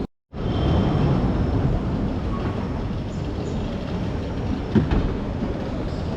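Steady rumble and rolling noise of a train or tram running, with one short knock about five seconds in. It cuts in after a split-second gap at the very start.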